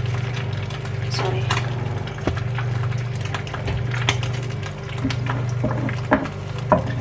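Egg frying in oil in a non-stick frying pan on an induction hob, over a steady low hum. Near the end a wooden spatula knocks against the pan a couple of times.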